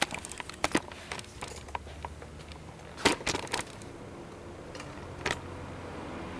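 Handling noise as a camera is moved and aimed down at a table: a scatter of small clicks and knocks, with the loudest cluster about three seconds in and one more knock near the end.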